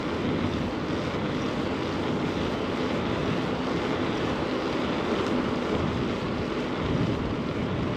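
Steady rushing noise of wind over a moving bike-mounted action camera's microphone, mixed with the hum of city street traffic.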